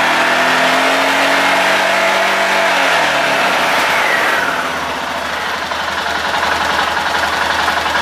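Arctic Cat 650 H1 ATV's single-cylinder four-stroke engine held at high revs, around 5,000 rpm, under full electrical load with all lights on, as a stator charging test. About three seconds in the revs fall away and the engine settles to a steady lower speed for the rest.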